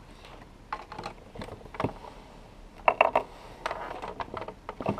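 Irregular light clicks and taps of small plastic toys being handled: a doll and pet figures moved and set down on a plastic playset, with the busiest, loudest cluster about three seconds in.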